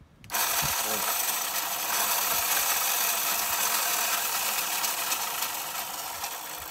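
Razor E300 electric scooter's 24-volt hub-less chain-drive motor switched straight on through a relay, running at full speed with a rattle as it spins the rear wheel freely, then starting to die away near the end. The motor is turning backwards because its leads are connected the wrong way round.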